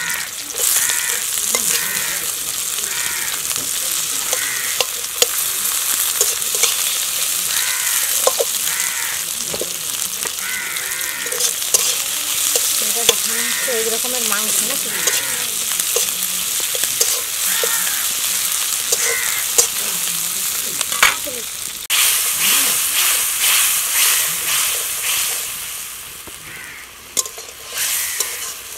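Sliced onions frying in oil in a large iron kadai over a wood fire, sizzling steadily while a metal spatula stirs and scrapes against the pan with scattered clicks. A bird calls repeatedly in the background during the first half. About two-thirds of the way through, the sizzling suddenly grows louder and hissier.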